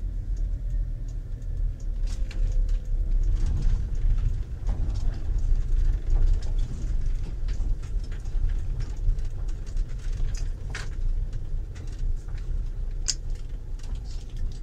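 Mercedes motorhome driving slowly, heard from inside the cab: a steady low engine and road rumble with scattered light clicks and rattles.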